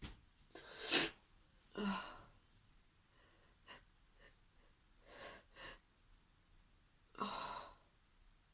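A woman sneezing repeatedly in a sneezing fit, with sharp breaths between the sneezes; the loudest sneeze comes about a second in and another strong one about seven seconds in.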